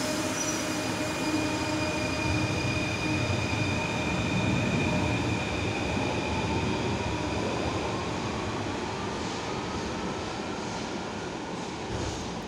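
Paris Métro MF01 train pulling out of the station and accelerating into the tunnel. Its running gear rumbles while the traction motors' whine rises steadily in pitch, and the sound slowly fades as the train draws away.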